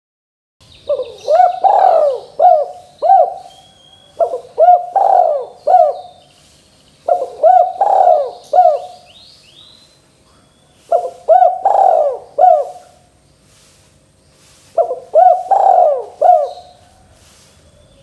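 Spotted dove (tekukur) cooing: five repeated phrases of several low coos each, a few seconds apart. Faint high chirps sound behind the first two phrases.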